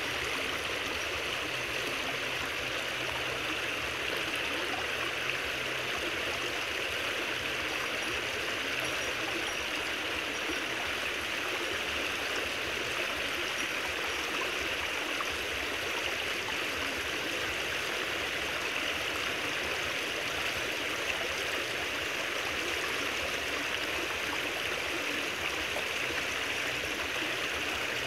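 Creek water rushing steadily through a narrow gap and pouring into a bamboo-strip cage fish trap.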